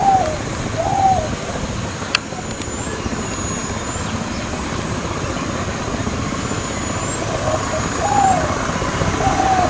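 A bird giving short hooting notes that rise and fall, in runs of two or three about a second apart, over a steady low rumble. Thin high whistles come now and then, and there is a single sharp click about two seconds in.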